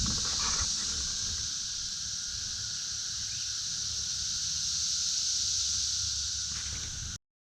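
Chorus of periodical cicadas singing: a steady, high-pitched drone that cuts off suddenly about seven seconds in.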